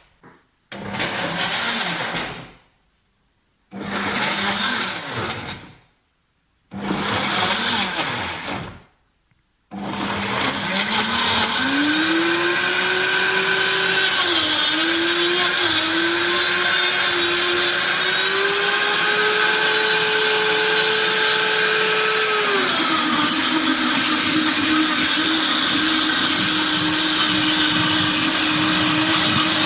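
Optimum G2.6 high-speed blender running its smoothie program on a jug of frozen fruit and almond milk. It starts with three short runs separated by silences, then runs continuously, its motor pitch climbing and wavering upward. About three quarters of the way through it drops to a lower, steady speed.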